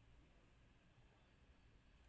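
Near silence: faint low background rumble and hiss, with no bird call.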